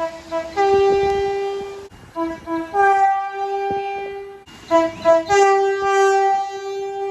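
Locomotive multi-chime air horn sounding a chord in a series of blasts: a short one then a long one, two quick short ones then a long one, and a short one then a long one that runs to the end.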